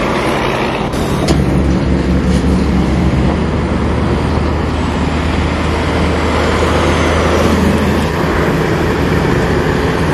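Heavy truck's diesel engine running with a deep, steady drone over traffic noise; the drone sets in about a second in.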